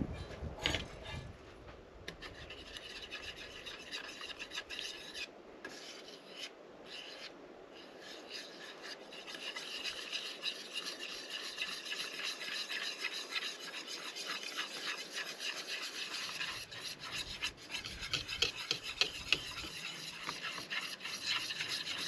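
Wire whisk beating batter in a bowl: fast, steady scraping strokes of the wires against the bowl. A few knocks of a spatula against a frying pan come first.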